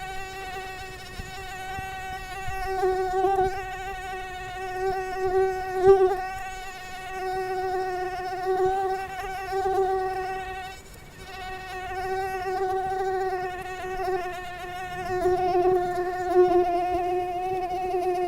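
Mosquito in flight: a steady, high-pitched whining buzz from its wingbeat that swells and fades as it moves about, with a brief dip about eleven seconds in.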